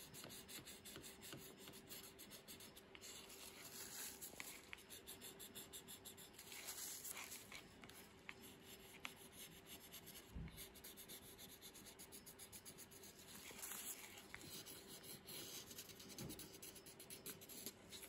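Faint, rapid scratching of a wooden barbecue skewer scraping into layered oil pastel on paper in quick short strokes, with a soft low thump about ten seconds in.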